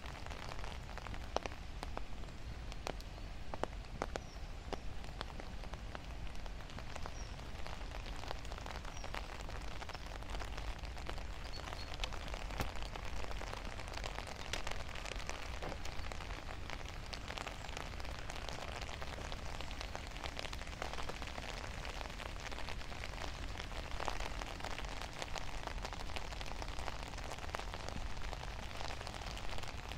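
Steady rain falling, with many sharp individual drops hitting close by.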